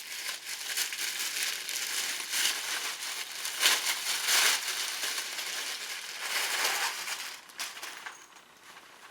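Packaging crinkling and rustling in irregular handfuls as a small soft cooler bag is unwrapped and turned over by hand, dying down near the end.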